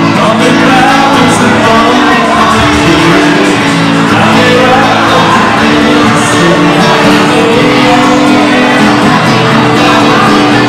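Loud live pop song played on strummed acoustic and electric guitars, with a man singing into a microphone.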